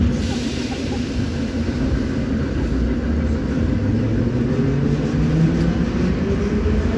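Metro train pulling away from a station, heard from inside the car: a steady rumble of the running gear, with a short hiss at the start and the traction motors' whine rising in pitch as it speeds up.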